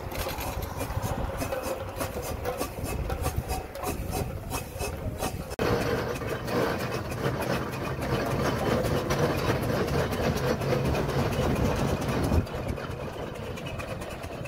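Aveling & Porter steam roller on the move: its steam engine beats in a quick, regular rhythm over the clank and grind of the iron rolls and gearing on the road.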